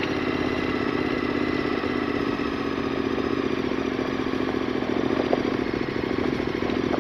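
Large V-twin adventure motorcycle engine running steadily at low revs as the bike rolls slowly over a gravel track, with loose stones crunching and clattering under the tyres.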